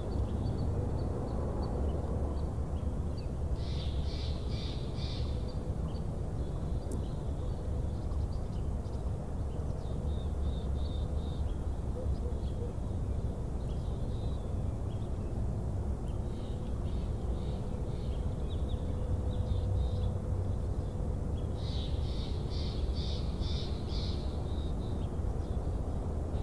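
Bald eagle giving runs of high, rapid chittering calls, about five or six quick notes per run, once about four seconds in and again near the end, with fainter calls in between. A steady low rumble lies underneath.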